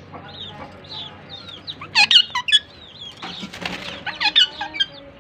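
A pair of Indian ringneck parakeets chirping back and forth in quick, high, down-slurred chirps. Louder runs of calls come about two seconds in and again near four and a half seconds, and a brief flutter of wings comes about three and a half seconds in.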